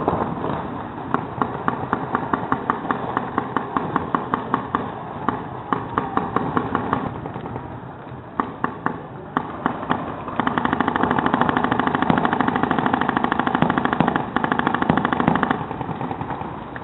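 Paintball markers firing in rapid volleys of sharp pops that thin out around the middle. For about five seconds near the end comes a louder, steady, very fast rattle of shots.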